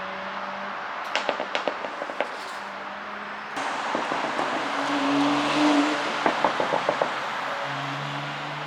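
Porsche Panamera 4's twin-turbo V6 exhaust, its flaps held fully open by an ECU tune, revving and dropping back, with a quick run of crackling pops on the overrun each time: one burst about a second in and another around six seconds in, after a rev rise.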